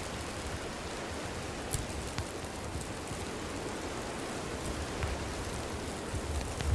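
Wood campfire burning: a steady hiss with a few sharp crackles and pops scattered through, and a low rumble near the end.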